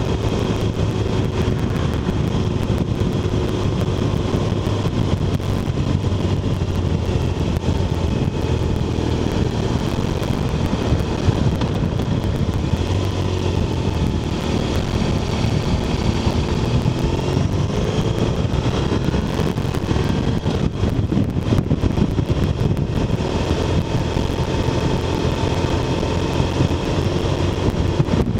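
BMW R1200RT's boxer-twin engine running on the move, mixed with wind and road noise. The engine note dips and then climbs again about halfway through, as the bike slows for a roundabout and picks up speed again.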